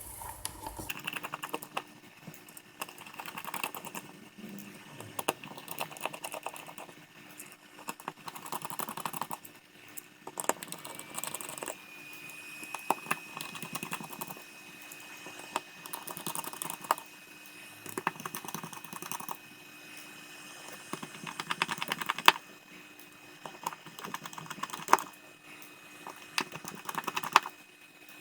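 Precision screwdriver backing out the small screws around the perimeter of a Highscreen Boost 2 SE smartphone's housing: rapid light ticking and clicking in bursts, with a few sharper single clicks as tool and screws are handled.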